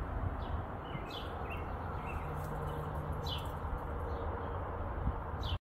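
Birds chirping, a few short falling chirps spaced irregularly, over a steady low background rumble.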